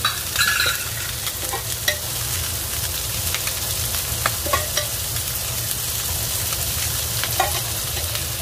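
Minced meat, chopped onion and garlic sizzling in a hot frying pan as a little oil is added. A metal spoon and the oil pot give scattered light clicks and a brief clink about half a second in.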